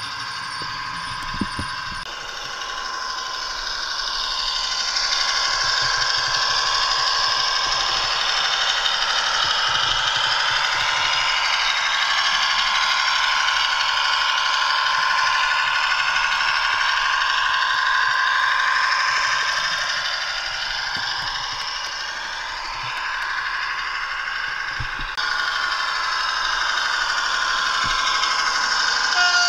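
A Bachmann OO gauge class 150 model train running, its DCC sound decoder playing diesel railcar engine sound through the model's speaker. Over this comes a continuous wavering squeal from a squeaking wheel, the sign that the wheels need oiling.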